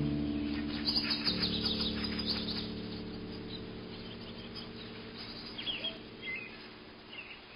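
Soft background music of held chords, slowly fading away, with small birds chirping over it.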